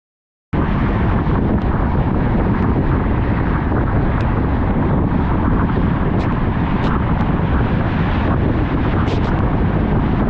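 Steady, loud rushing rumble of a moving vehicle, starting abruptly about half a second in, with a few faint ticks.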